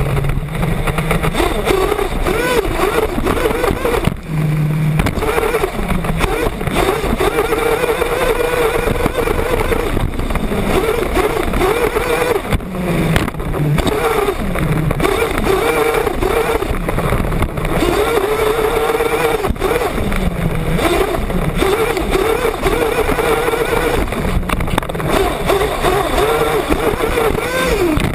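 Small nitro engine of a 1/8-scale off-road RC buggy, heard close up from on board. It revs continuously, its pitch rising and dropping every second or two as the throttle opens and closes through the laps.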